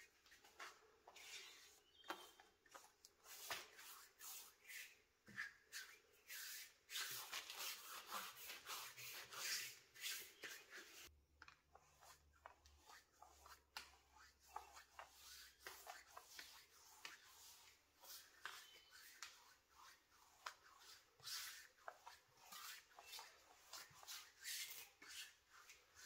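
Quiet, irregular scratchy strokes of a bristle brush and hand rubbing a wet wood finish onto bare sanded wood, with a brief break about eleven seconds in.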